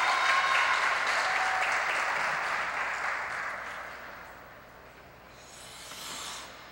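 Audience applauding, dying away over about four seconds. Near the end there is a short hiss that swells and then cuts off.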